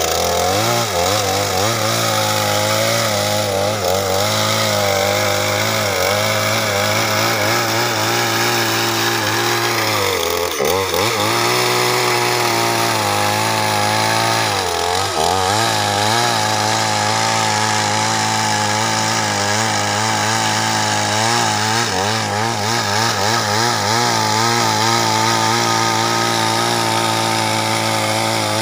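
Petrol chainsaw, a two-stroke, running at high revs while cutting through a fallen tree trunk. Its engine note dips briefly and recovers about ten seconds in and again around fifteen seconds, as the chain loads up in the wood.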